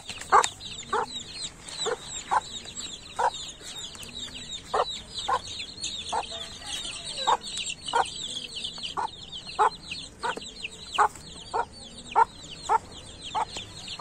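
Young chicks peeping continuously in short high, falling chirps, while a hen among them clucks in short low calls about one and a half times a second.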